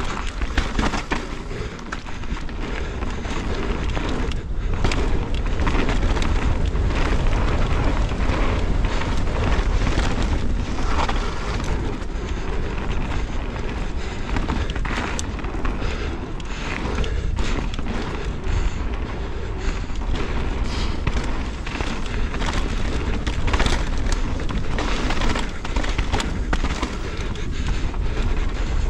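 Mountain bike riding fast down a dirt and gravel trail: tyre noise and gravel crunch, with frequent knocks and rattles from the bike over bumps, under a heavy low wind rumble on the action camera's microphone.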